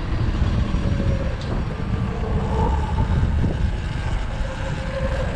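Wind rushing over the microphone with road and traffic noise while riding, a steady low rumble with a few faint held tones above it.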